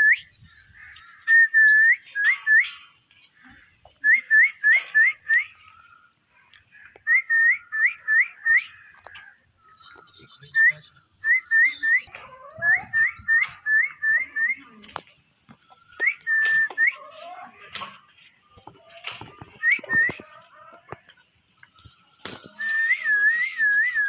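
Rose-ringed parakeets whistling: short clear notes, each ending in a quick upward flick, repeated in fast runs of three to five with pauses between the runs.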